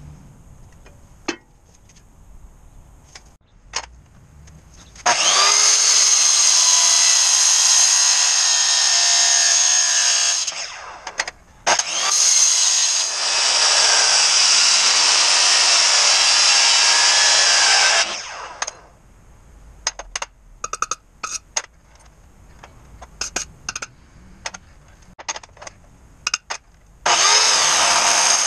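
Miter saw cutting steel strut channel in three long runs with a high, steady whine: a cut about five seconds in, another from about twelve to eighteen seconds, and a third starting near the end. Clicks and knocks of the metal being handled come between the cuts, on a blade that cuts the steel badly.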